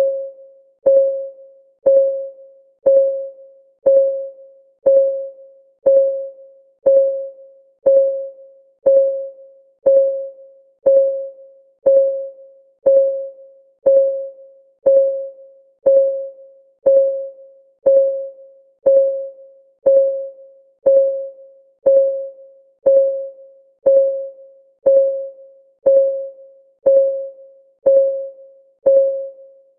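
Countdown timer's clock-ticking sound: one short pitched tock about every second, each dying away quickly, in a steady, even beat.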